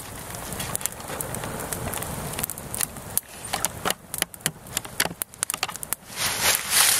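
Twig kindling burning on a log base, crackling with many sharp snaps and pops as the flames catch.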